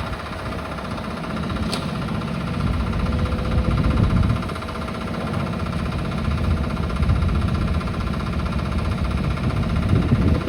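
Demolition excavator's diesel engine running under load while it works on the building, with low rumbling swells and a sharp click about two seconds in.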